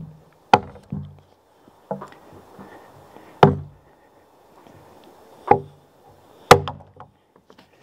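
About half a dozen sharp knocks at uneven intervals, struck on a wooden beam to drive it down over threaded anchor bolts and seat it on the wall.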